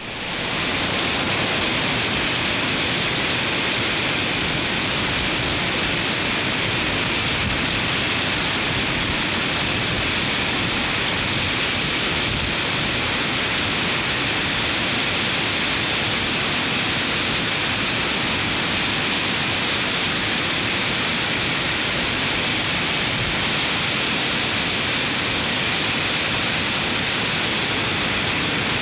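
Steady, even rushing noise of a storm on the coast, fading in over the first second and then holding level.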